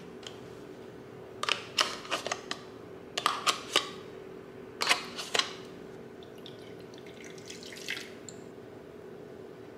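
A metal spoon scraping and tapping inside a plastic yogurt cup, in three short clusters of clicks, over a steady hum. Fainter splashes follow near the end as water is poured into a wooden bowl.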